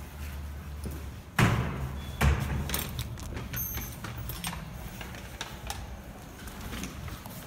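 Two loud thuds less than a second apart, followed by scattered light clicks and knocks.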